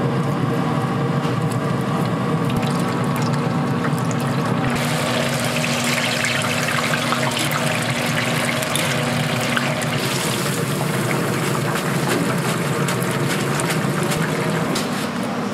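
Battered chicken pieces sizzling and crackling in a deep fryer's hot oil. The crackle grows busier about five seconds in.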